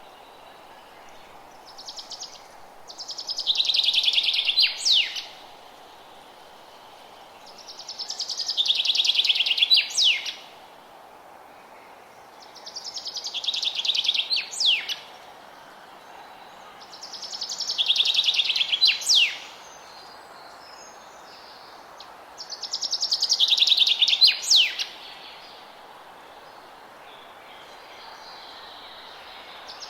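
A songbird repeating the same song five times, about every five seconds. Each song is a rapid trill that slides slightly lower and ends in a quick falling note. A faint steady hiss runs underneath.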